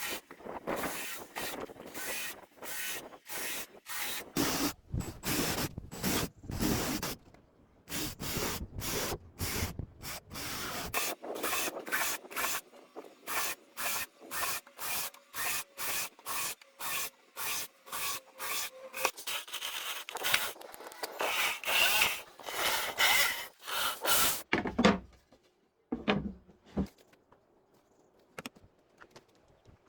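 Wood being worked by hand with an abrasive: repeated back-and-forth rubbing strokes, about two a second, that stop about 25 seconds in, followed by a few faint knocks.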